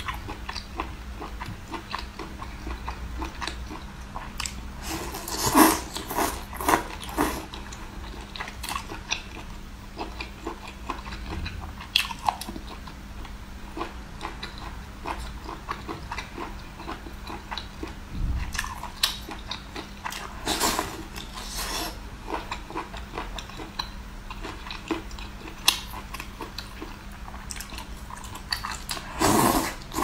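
Close-miked eating sounds as a person bites and chews cooked octopus. Wet mouth sounds and chewing run throughout, with louder bites now and then.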